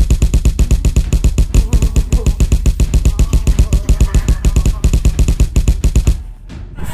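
A rapid, evenly spaced flurry of dubbed punch sound effects, about eight hits a second, that stops suddenly near the end.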